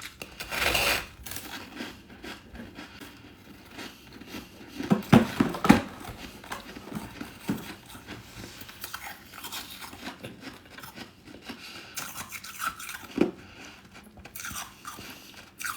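Close-miked biting and chewing of freezer frost, crisp crunching and crackling in irregular bites. The loudest cluster of crunches comes about five to six seconds in, with a scraping bite near the start.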